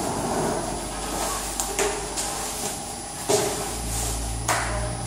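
Rustling of a disposable protective coverall as it is pulled off the body, with three sharp knocks spread through the middle of the clip. A low steady hum comes in about three and a half seconds in.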